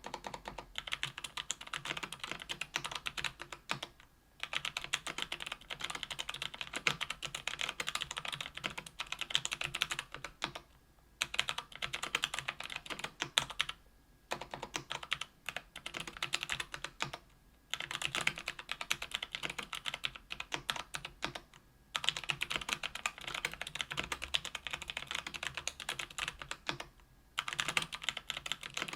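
Fast, continuous typing on a KBDfans Tofu 65% aluminium keyboard with Krytox 205g0-lubed Kailh BOX Brown tactile switches on an aluminium plate. The keystrokes form a dense clatter, broken by short pauses every few seconds.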